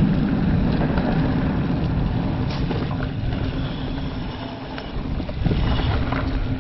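Mountain bike riding fast on a dirt trail: wind rushing over the microphone and tyres rumbling on the ground, with a few small knocks from the bike, loudest at first and easing off near the end.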